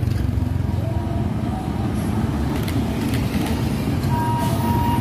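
Diesel engine of an Isuzu Giga tractor unit hauling a flatbed trailer, running at low speed as it drives past at close range, over street traffic noise. A steady high tone starts about four seconds in.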